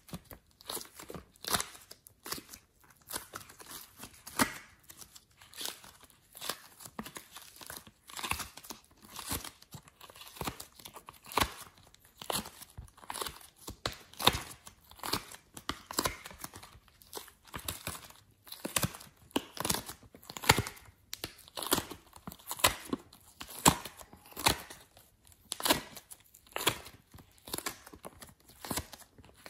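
Soft modelling clay squeezed by hand and pressed into a plastic heart-shaped mould, giving irregular sharp crackles and sticky tearing clicks, a few a second.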